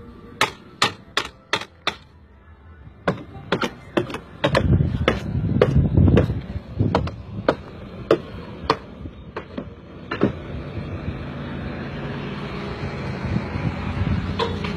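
A hard object jabbed and scraped against a car's painted metal body, gouging the paint: a series of sharp clicks, five in quick succession at first, then more at irregular spacing for several seconds.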